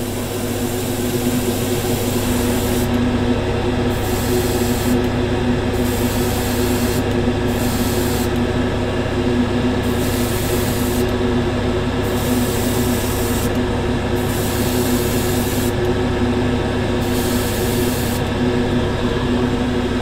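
Airbrush spraying paint in about eight short bursts of hiss, one to two seconds each, as the trigger is pressed and released. Underneath is the steady hum of the spray booth's extractor fan.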